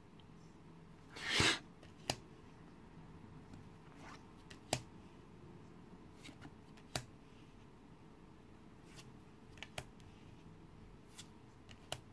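Game cards being handled and flipped through one at a time: a card sliding across the deck with a swish about a second in, then scattered light clicks of card edges.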